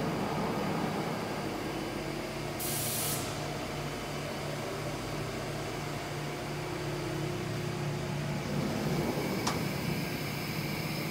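Mazak VARIAXIS 500-5X five-axis vertical machining center powered up: a steady machine hum with a few fixed low tones. A short burst of hiss comes about three seconds in, and a faint click near the end.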